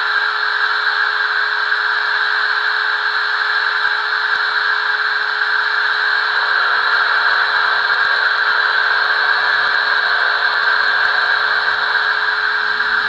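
Steady steam hiss with a constant whine underneath, played through the speaker of a Märklin T 18 gauge 1 model steam locomotive's ESU LokSound sound decoder while the engine stands still.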